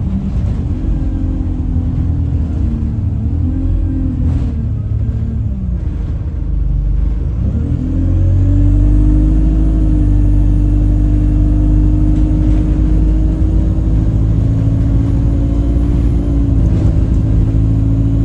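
Alexander Dennis Enviro 200 bus under way with engine and road rumble and a strong, horn-like humming tone over it. The tone wavers and dips in pitch for the first several seconds, then about eight seconds in rises and holds steady and louder. It is an abnormal whistle-turned-horn noise, with the bus running sluggishly, which the owner suspects comes from the gearbox.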